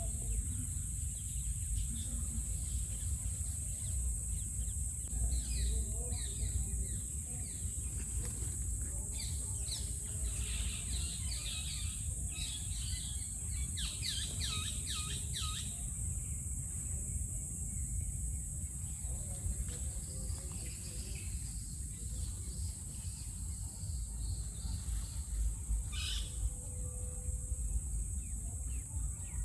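Outdoor ambience: a steady high-pitched insect drone over a low rumble, with short bird chirps, most of them in a run through the middle and another about three-quarters in.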